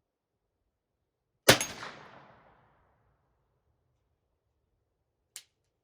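A single 9mm shot from a Kel-Tec Sub-2000 carbine, its report trailing off over about a second, followed near the end by a short faint click.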